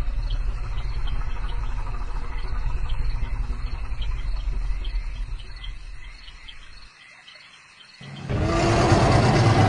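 Spinosaurus creature sound effect: a deep, low rumble under crickets chirping in a steady pulse. The rumble fades out about seven seconds in, and a loud, multi-pitched roar begins about a second later.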